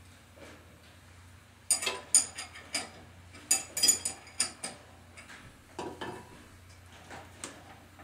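Metal bolts, washers and tools clinking and tapping in a quick irregular cluster, with a few more clinks later, over a low steady hum.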